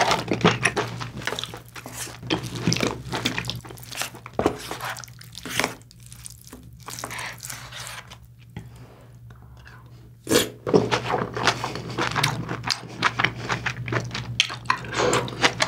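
A wooden spoon mixing cooked rice into braised kimchi stew sauce, with clacks and scrapes against the pot, then close-miked chewing of a mouthful from about ten seconds in.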